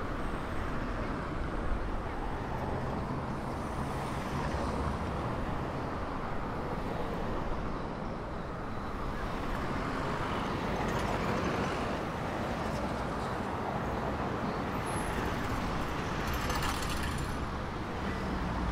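City street traffic: cars and an SUV driving past at a crossing, a steady road hiss that swells twice as vehicles pass close by.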